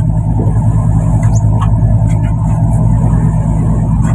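Fishing boat's engine running with a steady low drone, with a few faint knocks on deck over it.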